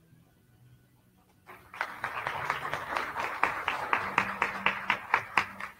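Audience applauding in an auditorium: it starts abruptly about a second and a half in after near quiet, with a few louder single claps standing out near the end.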